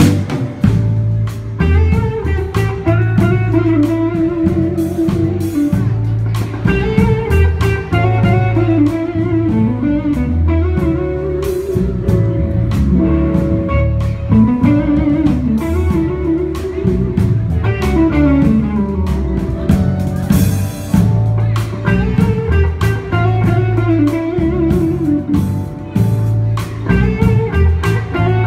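A live blues band: electric guitar playing lead lines full of bent notes over bass guitar and drums.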